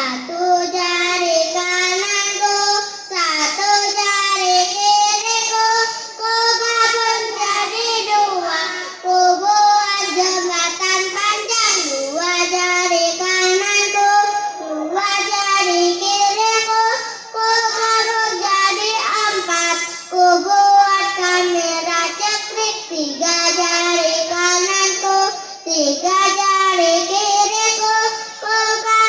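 A group of young children singing together in unison, one melody line with held notes and brief pauses between phrases.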